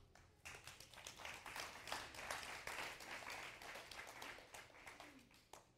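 Congregation applauding: many hands clapping together, starting about half a second in, holding steady, then dying away near the end.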